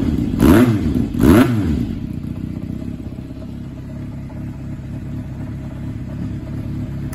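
Kawasaki Zephyr400's air-cooled inline-four engine blipped twice on the throttle, the revs rising and falling quickly in the first two seconds, then settling to a steady idle.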